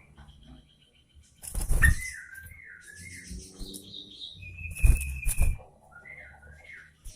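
Yellow-vented bulbul (trucukan) singing short phrases of wavering whistles that rise and fall. Two loud rustling thumps come, one at about a second and a half and one at about five seconds.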